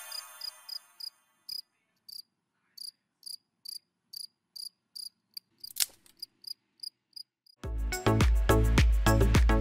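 A sparkling chime effect rings out and fades in the first half second, then crickets chirp in short high pulses, about two or three a second, with a single sharp click past the middle. Loud background music with a heavy bass beat cuts in near the end.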